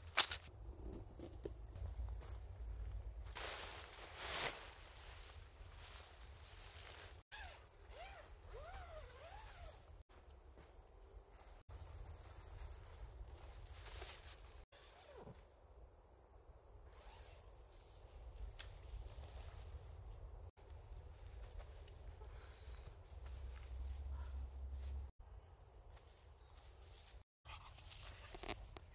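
A steady, high-pitched insect trill, with a few brief rustling sounds early on.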